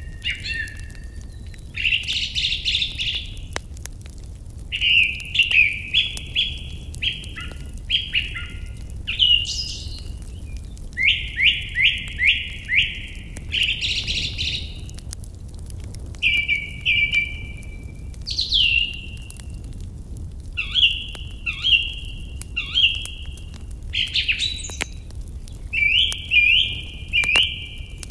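Songbirds singing short, varied phrases of chirps and trills, one after another every second or two, over a steady low rumble and faint crackles from a campfire.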